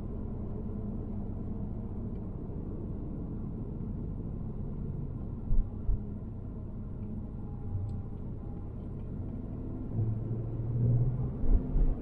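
Steady low road rumble of a moving car heard from inside the cabin, with two short low thumps about halfway through and a low hum swelling near the end.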